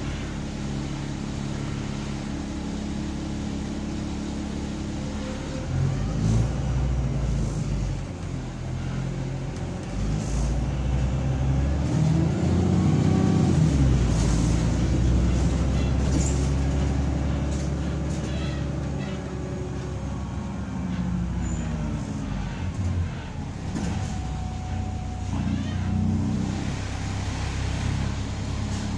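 Wright Gemini 2 VDL DB300 double-decker bus engine heard from inside the passenger saloon, running steadily and then revving hard as the bus accelerates. Its pitch rises to a loud peak about halfway through, falls as it changes gear, then climbs and drops again more gently.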